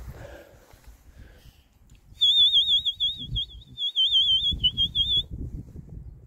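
A loud, high trilling whistle, its pitch warbling rapidly, sounded for about three seconds from about two seconds in with two brief breaks, over a low rumbling noise.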